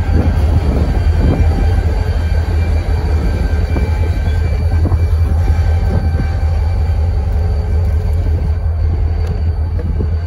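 Freight diesel-electric locomotives passing close and pulling away, their engines making a steady, loud low drone over wheels rolling on the rails, with faint thin squealing tones above.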